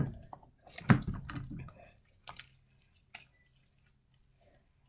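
Homemade shaving-cream slime being squeezed and kneaded by hand, giving irregular wet squelches and small sticky pops. It is loudest in the first two seconds, then thins to a few faint clicks.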